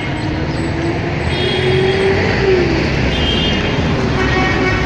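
Street traffic: engines running and vehicles passing, one engine rising in pitch and then falling away about two and a half seconds in.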